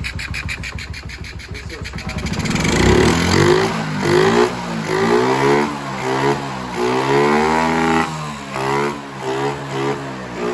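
Honda CG 160's single-cylinder four-stroke engine idling with an even low pulse, then revved up and down over and over from about two and a half seconds in. The revving tests a freshly adjusted carburettor air screw.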